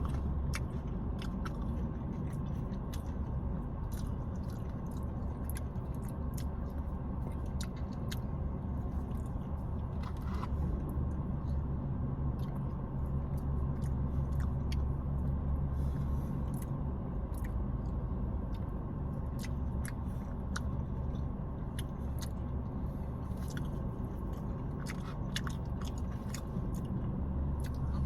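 Close-up chewing and mouth clicks of someone eating a KFC Famous Bowl of fried chicken pieces, mashed potatoes and gravy, with many scattered sharp clicks over a steady low hum inside a car.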